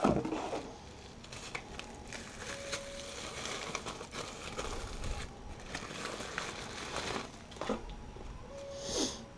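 Plastic bubble wrap crinkling and rustling as a LiPo battery pack is lifted from its box and unwrapped by hand, with scattered light ticks.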